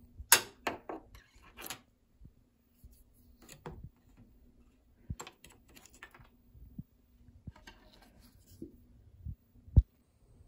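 Irregular bursts of scraping and clicking as something is poked and rubbed along the narrow gap beside a countertop edge to fish out a dropped cotton swab, with a few dull knocks, the loudest near the end. A faint steady hum lies underneath.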